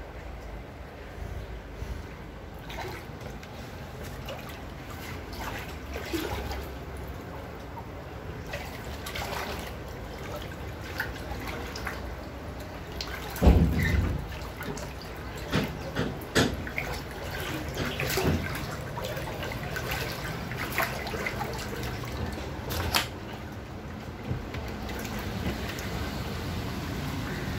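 Floodwater sloshing and splashing, with a steady rush of water underneath and many short splashes and knocks; the loudest is one heavy splash or thump about halfway through.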